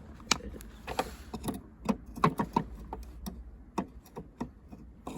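A series of irregular light clicks and knocks, about a dozen, over a steady low hum.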